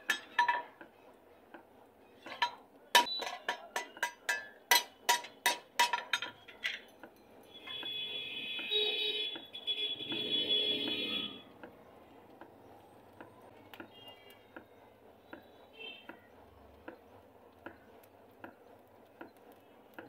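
Blacksmith's hand hammer striking iron on a small anvil: sharp ringing blows about two a second for the first seven seconds. A steady high-pitched whine follows for about four seconds, then only faint light taps.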